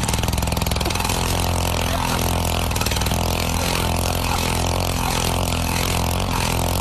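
Gas-powered ice auger engine running steadily, its bit drilling down into lake ice while the power head turns the man sitting on its handles round and round.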